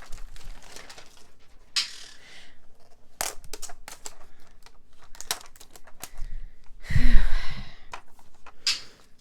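Plastic packaging being crinkled and torn open by hand, with many small clicks and rustles. About seven seconds in there is a brief, louder burst that includes a short low voiced sound.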